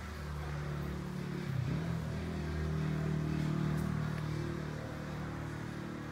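A motor vehicle's engine running steadily, growing louder to a peak a few seconds in and then easing off.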